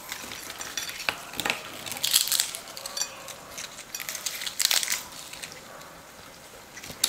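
Crisp, flaky layered fried maida puris (verki puri) being broken apart by hand, the thin fried layers crackling and snapping in several short bursts. The crackle is the sign that the puris are fried fully crisp.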